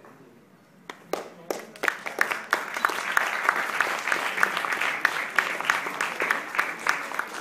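Audience applauding: a few scattered claps about a second in, quickly swelling into steady applause.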